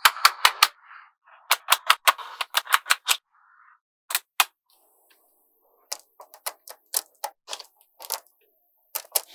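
Small magnetic balls clicking sharply as they snap together, in quick runs of several clicks with short pauses between.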